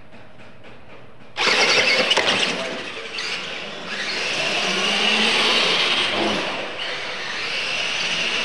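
Two radio-controlled monster trucks launching from the start line about a second and a half in, then racing with a steady high whine that swells and dips as they speed up and slow down.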